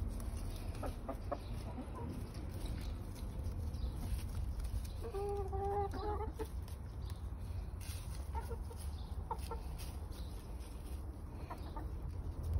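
Hens clucking as they forage, in short soft calls, with one longer drawn-out call about five seconds in. A steady low rumble runs underneath.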